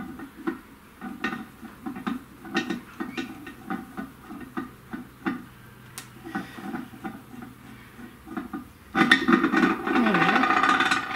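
Steel parts clicking and knocking against the cast-iron Y-axis base of a bench mill as the Y-axis screw is worked in its mounting. Near the end comes a louder stretch of metal rattling and scraping, about two seconds long, as the threaded screw slides through the casting.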